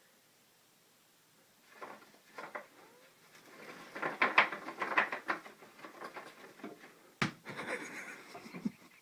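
Irregular crackling, rustling and clicking of objects being handled for foley, with one sharp click about seven seconds in.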